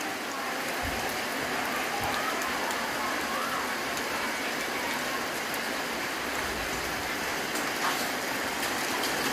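Light rain falling steadily on wet pavement and roofs: an even hiss with a few louder drops ticking here and there.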